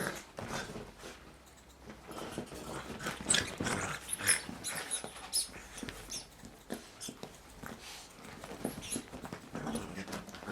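Puppy playing with a squeaky rubber duck toy: scattered clicks and chewing noises with short squeaks, busiest between about three and five seconds in.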